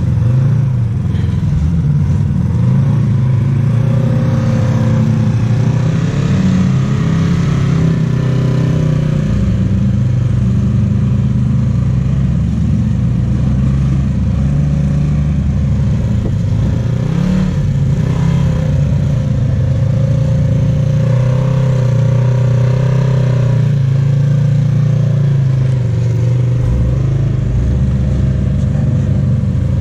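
Off-road vehicle engine running close by, its pitch rising and falling as it is revved to crawl over rock.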